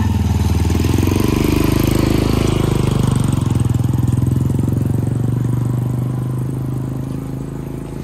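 Motorcycle tricycle engine running close by with a fast, even putter; its note rises a little about three seconds in, and it grows slightly quieter near the end.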